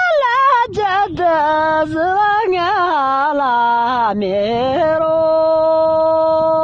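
A person singing loudly in a high voice, the melody winding up and down in quick turns, then settling into one long held note about five seconds in.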